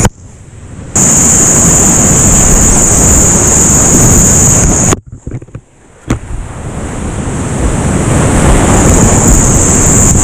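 Whitewater of a creek running high, rushing loudly. Twice, once at the very start and again about five seconds in, it drops almost away for about a second. A sharp click marks the second return.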